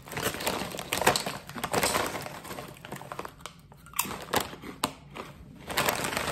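A potato-chip bag crinkling as a hand rummages in it, then a rippled potato chip bitten and crunched, with a few sharp cracks about four seconds in and more crunching as it is chewed near the end.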